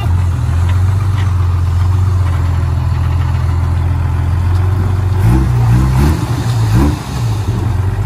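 Diesel engine of heavy earthmoving machinery running at a steady low pitch. From about five seconds in it revs up and down, its pitch wavering.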